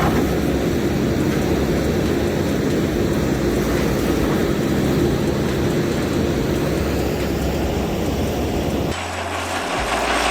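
Backhoe loader's diesel engine running steadily under load as it digs. About 9 seconds in, the sound cuts abruptly to a different machine's engine, a deeper low hum.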